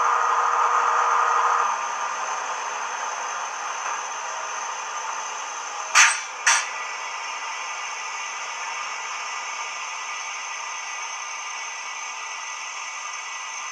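DCC sound recording of a Class 70 diesel locomotive's engine running at a standstill, played through a small megabass speaker inside a Bachmann OO-gauge model. The engine sound steps down a little under two seconds in, then runs steadily, with two short sharp sounds about six seconds in, half a second apart.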